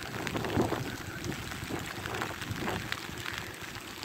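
Heavy rain falling in a downpour: a steady hiss of rain with many scattered short ticks of single drops striking.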